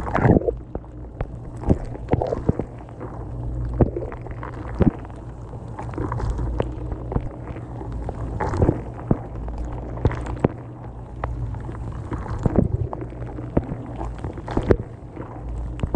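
Dishwasher running, heard from a camera inside the wash tub: a steady low motor hum with water spraying and sloshing and irregular splashes and knocks against the camera.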